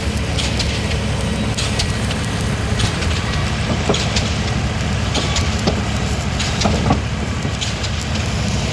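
Diesel engine of a pile-driving rig running steadily, with scattered light knocks and clinks at irregular intervals.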